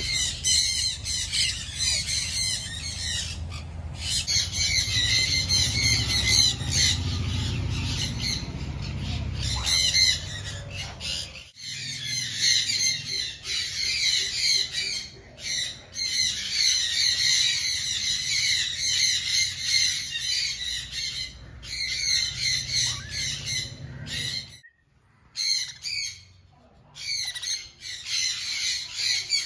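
Green-cheeked conure chicks calling: a fast, continuous run of short, high squawks, broken by a few brief pauses.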